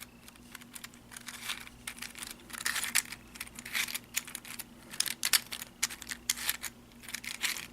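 3D-printed plastic 1x3x4 cuboid puzzle being turned by hand: an irregular run of plastic clicks and clacks as its layers are twisted.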